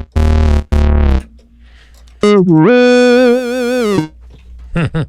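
Monophonic Alpha Juno-style synthesizer patch in Omnisphere being played: two short notes, then a held note about two seconds in that dips in pitch, comes back up and wavers with vibrato, and a couple of short notes near the end.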